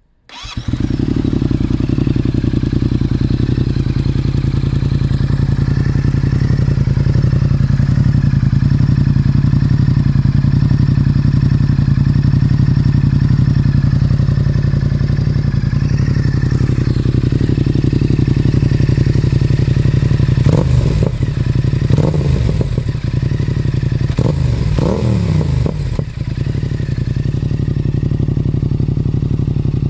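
The 689 cc parallel-twin engine of a 2020 Yamaha XSR700, breathing through an Ixrace MK2 full aftermarket exhaust, starts up on the electric starter and settles into a steady idle. About two-thirds of the way through, a few short throttle blips raise the engine speed briefly before it drops back to idle.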